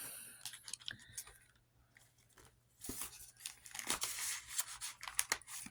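Paper banknotes and cash envelopes being handled and leafed through: irregular rustling and crinkling with small clicks, busier in the second half.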